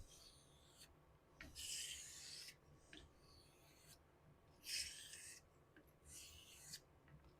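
Straight razor blade stroked along a Shapton whetstone in about four separate hissing passes, each about a second long. This is the bevel-setting stage of honing.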